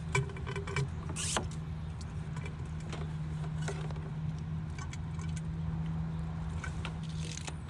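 A motor running steadily with a low, even hum, with scattered light clicks and a short hiss about a second in.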